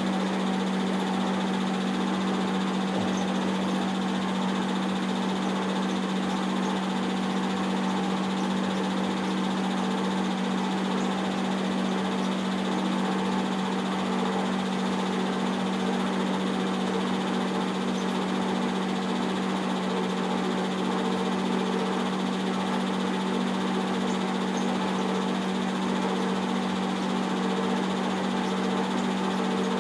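A 70-year-old 8 mm film projector running, its motor and fan giving a steady hum with one strong low pitch.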